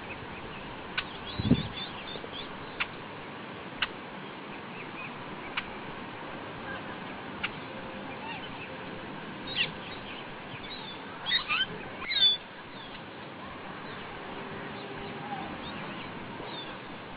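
Birds chirping now and then over a steady hiss, with a few sharp clicks in the first half. A short cluster of louder chirps comes a little past the middle.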